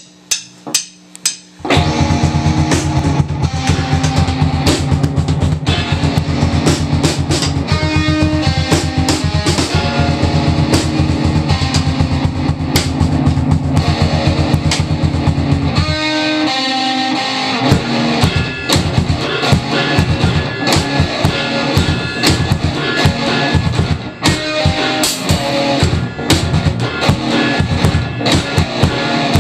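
Rock music with guitar and drum kit and a steady beat, starting about two seconds in after a few sharp knocks, and briefly thinning out about halfway through.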